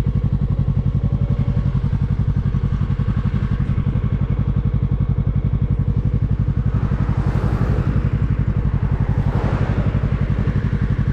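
Yamaha R3's 321 cc parallel-twin engine idling steadily through its stock exhaust, an even pulsing note that does not rev. A rush of noise swells and fades about seven to ten seconds in.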